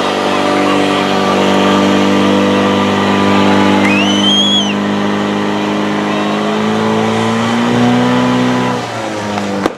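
Portable fire pump engine running at high revs with a steady drone, pumping water to the attack hoses. Its pitch shifts about seven seconds in, the sound drops near the end, and a sharp click comes just before the end. A short high whistle-like tone rises and falls about four seconds in.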